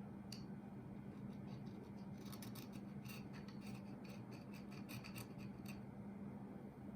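A small file scraping in quick, short strokes over the burrs on a fork stanchion, a run of light rasping strokes from about two seconds in to near six seconds, over a steady low hum.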